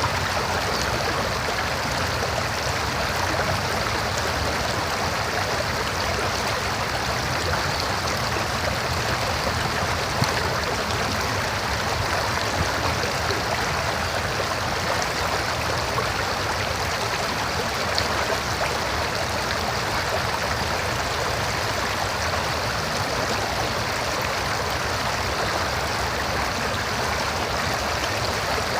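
River water flowing and rushing steadily over rocks, a continuous even babble.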